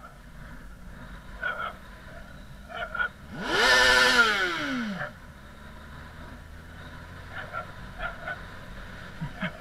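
Sport motorcycle engine revved once, about three and a half seconds in: the pitch rises quickly and then falls away over about a second and a half.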